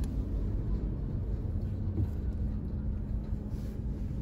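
Suzuki Jimny 5-door's 1.5-litre four-cylinder engine pulling away from a standstill on a steep climb at low revs, heard from inside the cabin as a steady low rumble with an even hum.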